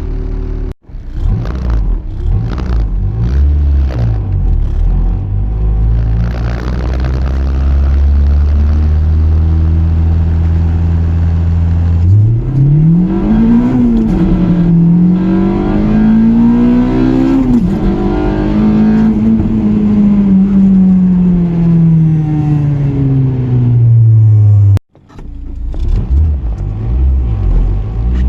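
Honda K24A2 four-cylinder engine breathing through a cold air intake, held at low steady revs, then pulled hard at full throttle with the pitch climbing sharply, dipping briefly twice as it shifts up, then winding down steadily as it slows. The sound cuts off abruptly twice, about a second in and near the end.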